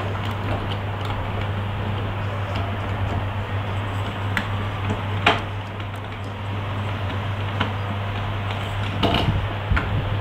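Scattered clicks and taps of the parts of a BMB LS-03 Optimus Prime transforming figure being moved and snapped into place by hand, the sharpest about five seconds in, over a steady low hum and hiss.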